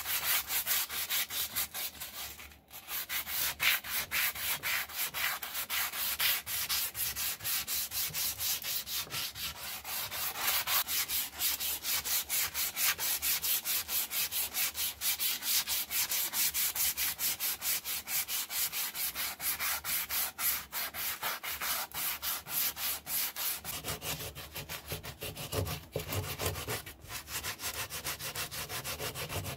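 Sandpaper rubbed by hand along a wooden axe handle in fast, steady back-and-forth strokes. The sound dips briefly a couple of seconds in, and about 24 seconds in it turns fuller and lower.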